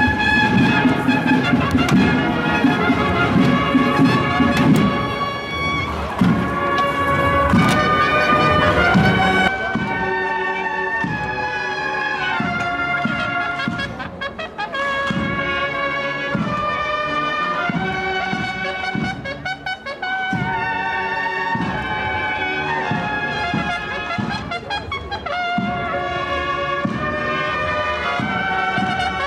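Cornet and drum band playing a Holy Week processional march: bugles carry a sustained melody over steady drum beats. About ten seconds in the sound turns duller as the recording changes.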